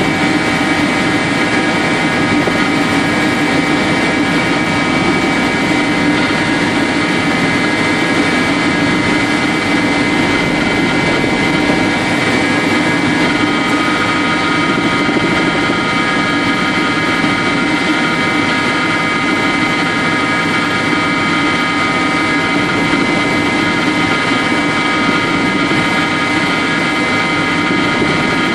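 Helicopter in cruising flight, heard from inside the cabin: a loud, steady drone of rotor and engine with a constant high whine on top.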